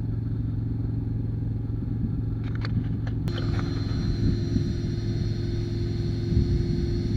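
An engine running steadily at idle with a low drone. A few sharp clicks come about two and a half seconds in, and just after them a steady higher whine joins the drone and holds.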